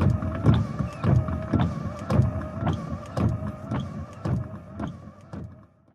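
A machine-like vehicle sound: a steady wavering whine under a regular low thump with a click about twice a second, fading out near the end.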